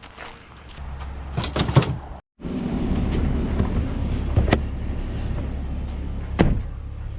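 A few knocks and rustles, then, after an abrupt cut, the steady low rumble of a vehicle engine and road noise, with two sharp clicks partway through.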